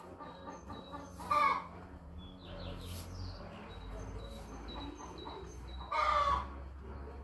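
Two short, loud barnyard animal calls, one about a second and a half in and another about six seconds in, over faint, repeated high chirps.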